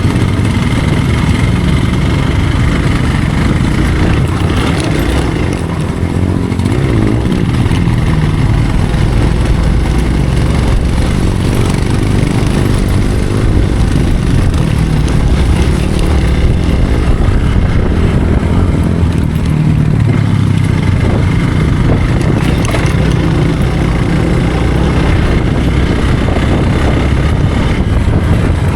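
Hero Xpulse motorcycle's single-cylinder engine running steadily while the bike is ridden, loud and continuous with a heavy low rumble.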